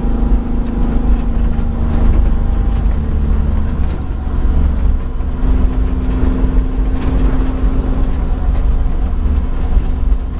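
Nissan D21 Hardbody drift truck driving at steady cruise, heard from inside its cab: engine drone over heavy road and wind rumble. The engine note dips a little about four seconds in and climbs back about five and a half seconds in.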